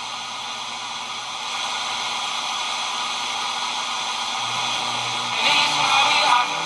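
Zenith K421W radio's FM band giving a steady static hiss between stations as it is tuned. About five seconds in, a station's broadcast comes up out of the noise.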